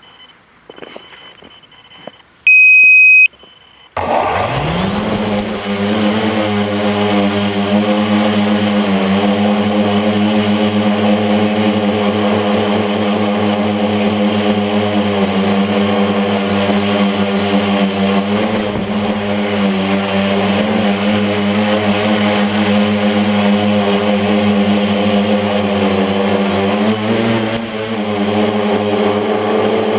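A short electronic beep, then, about four seconds in, the brushless motors and propellers of a mini FPV tricopter spin up into a steady buzzing drone with a high whine, dipping slightly in pitch now and then with the throttle. One motor has a bent shaft, which causes vibration.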